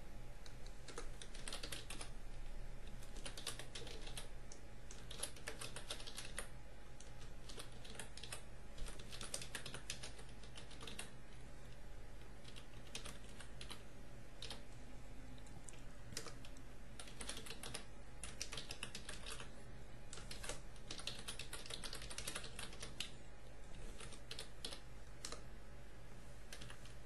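Typing on a computer keyboard: irregular runs of quick keystrokes broken by short pauses, over a steady low hum.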